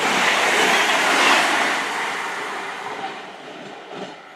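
A CrossCountry Voyager diesel multiple unit running away at speed after passing close by. Its rumble and wheel noise fade steadily over about three seconds, and a brief clatter follows near the end.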